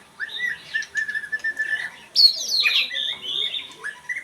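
Oriental magpie-robin singing: a string of clear whistled notes, then a louder, quick tumbling phrase of sweeping notes about two seconds in.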